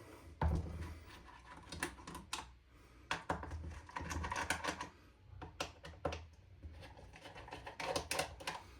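Irregular clicks and knocks of an airsoft bolt-action rifle being handled and set up for disassembly, with parts and tools tapping against each other and the work surface.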